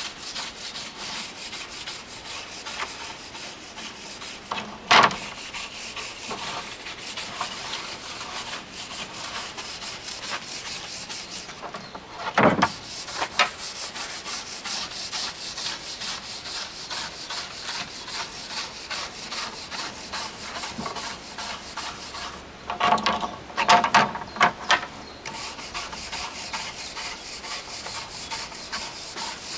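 Bristle scrubbing brush buffing black-leaded wooden organ slides: a steady brushing rub over the wood. A few louder knocks break in, with a cluster about three-quarters of the way through.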